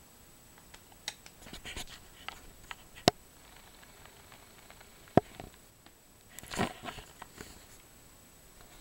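Small clicks, taps and rustles of hands working on the plastic screen bezel of an Asus Eee PC 1005HA netbook, taking out its screws and their little rubber covers. Two sharp clicks stand out, about three and five seconds in, and a brief scrape-and-rattle follows about six and a half seconds in.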